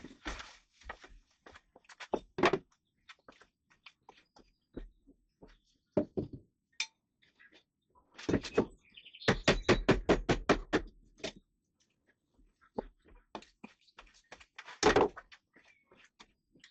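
Rotten plywood being knocked and pried out of a boat's side wall: irregular knocks, thuds and cracks, with a quick run of rapid, even blows in the middle.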